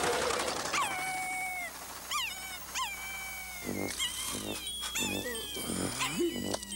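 Cartoon dog whining and whimpering: several high cries that drop sharply in pitch and trail off, followed in the second half by a run of short low pulses, about three a second.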